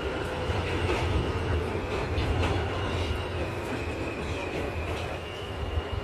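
New York City subway car running through a tunnel, heard from inside the car: a steady low rumble with sharp clicks of the wheels over rail joints and a faint high whine.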